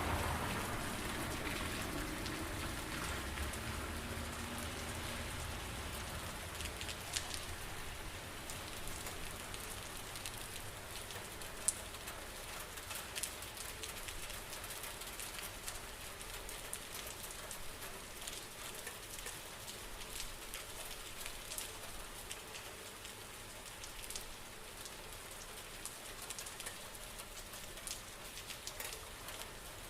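Steady rain with sharp individual drop hits scattered throughout. It is louder at the start and eases off over the first several seconds, then holds steady.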